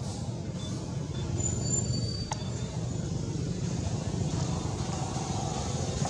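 Steady low outdoor background rumble, with a single sharp click about two seconds in.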